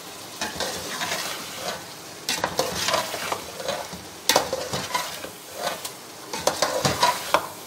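A flat slotted metal spoon scraping and clanking against a metal pot as a meat-and-potato masala with ground spices is stirred, the masala sizzling over a high flame. The strokes are irregular; the loudest clank comes about four seconds in.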